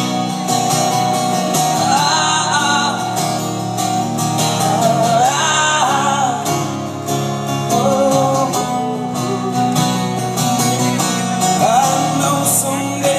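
Live guitar accompaniment under a man's wordless singing, his voice gliding up and down through long held notes.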